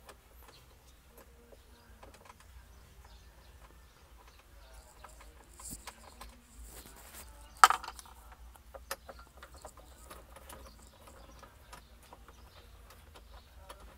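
Small scattered clicks and knocks from hands working at a car dashboard stereo and its trim, with one sharp click a little past halfway through.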